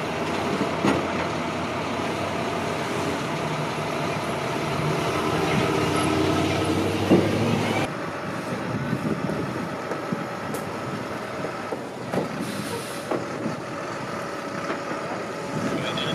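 Truck engines running with street traffic; the sound changes abruptly about eight seconds in. In the second part a flatbed tow truck carrying a minivan starts pulling away.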